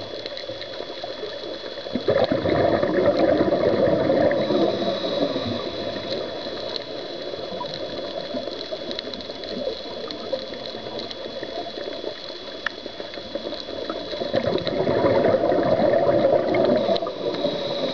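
Underwater: a scuba diver's exhaled bubbles rushing from the regulator past the camera in two long surges, each two to three seconds, about twelve seconds apart, with quieter bubbling and water movement between them and a steady faint high whine throughout.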